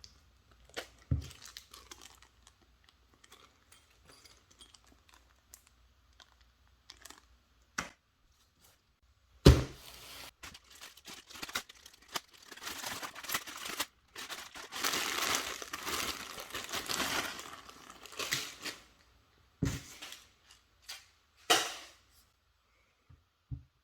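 Packaging being unwrapped and handled: plastic and paper crinkling and rustling, with scattered knocks. There is a loud thump about nine seconds in and a longer stretch of rustling in the middle.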